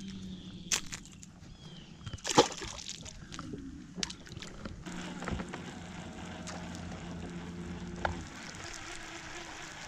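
Water sloshing against a fishing boat under a steady low hum, with a loud sharp knock about two and a half seconds in and a few lighter clicks as a topwater lure is handled and cast.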